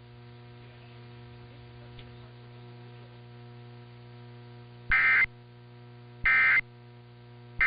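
Emergency Alert System end-of-message code: short, identical bursts of shrill warbling digital data tones, about a second and a third apart, two complete and a third starting at the very end, signalling the close of the alert. They are preceded by several seconds of steady low hum on the broadcast feed.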